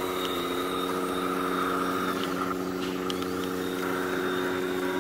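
Several small motors of radio-controlled model trucks and excavators running at once, a steady whine of several tones that holds its pitch, with a few faint clicks.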